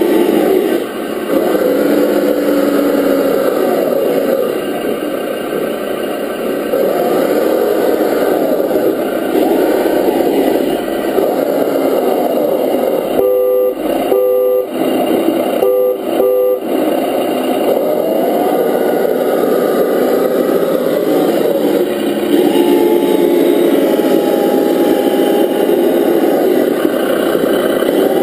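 Simulated engine sound of an RC scale Land Rover Defender D90 truck, rising and falling in pitch with the throttle as it drives. About halfway through it cuts out for four short two-note horn toots in two pairs.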